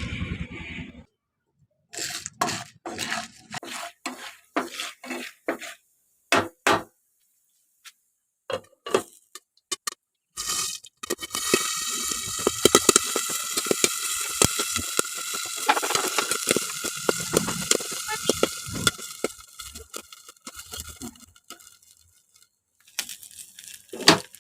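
Popcorn being made in a pan. First come several separate clatters and knocks, then from about eleven seconds a dense crackle of kernels popping over a steady hiss, which thins out and dies away after about twenty seconds.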